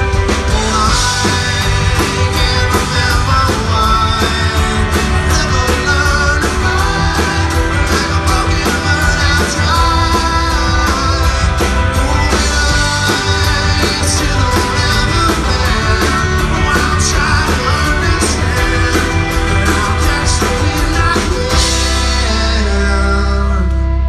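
Rock band playing live with lead singing: drum kit, electric and acoustic guitars and keyboard. About three seconds before the end the drums stop and the band holds a ringing closing chord.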